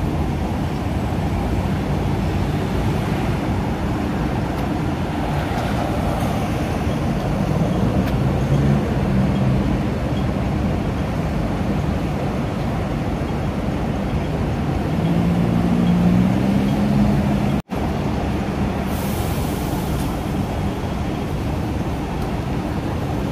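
City road traffic: vehicle engines running and passing, swelling twice as vehicles go by, with a short hiss about three-quarters of the way through.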